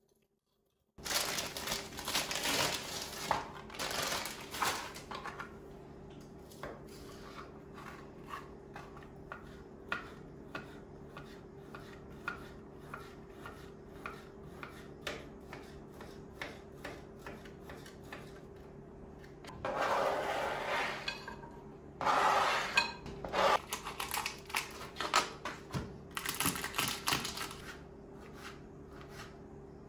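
Kitchen utensils clinking, tapping and scraping against dishes during food preparation. There are louder scraping bursts near the start and twice more about two-thirds through, with a run of light taps in between, over a faint steady hum.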